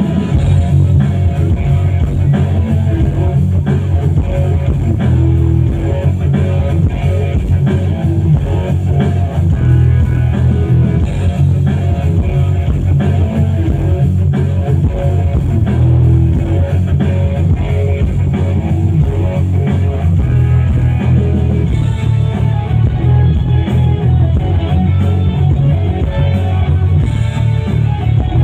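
Loud guitar-led music with a heavy bass and drums, playing without a break.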